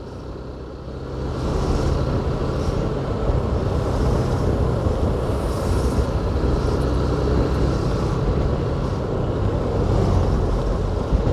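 Motor vehicle engine running with road noise in slow traffic, getting louder about a second in and then holding steady.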